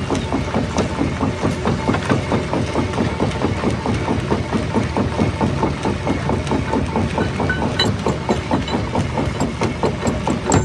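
Jaw rock crusher running, its jaw working in a fast, even pulsing several times a second under a low mechanical drone, with a few sharp cracks from the stone in the second half.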